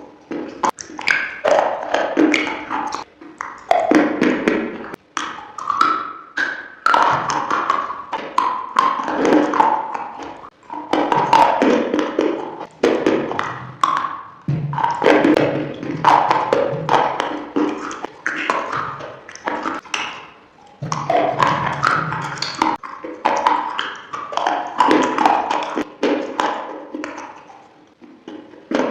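Close-up crunching and chewing of crunchy food: a dense run of sharp cracks and clicks, broken by short pauses every few seconds.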